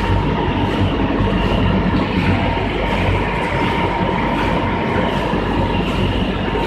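UV printing machine running, a steady mechanical rumble with a thin, steady high whine over it.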